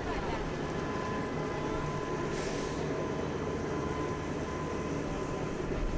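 Heavy military vehicle engines running steadily, with a low rumble and a thin steady whine, and a short hiss about two and a half seconds in.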